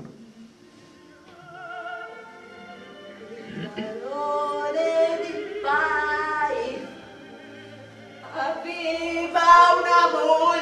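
A woman singing in an operatic style with vibrato: a quieter start, then two loud phrases, the second and loudest near the end.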